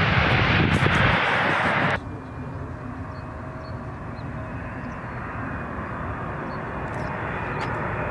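A Boeing 737's jet engines running loud during its landing rollout, cut off abruptly about two seconds in. Then comes the much quieter, steady sound of a Boeing 777 on final approach, a faint engine whine over it, slowly growing louder.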